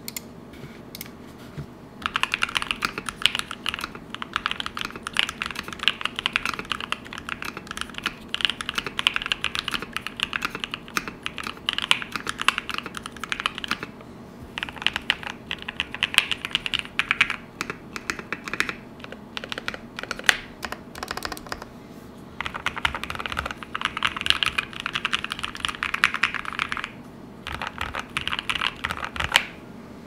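Typing on an HH60 custom 60% mechanical keyboard with lubed Lilac linear switches, a POM plate and PBT keycaps: fast, steady keystrokes that start about two seconds in, with short pauses about halfway and about two-thirds of the way through.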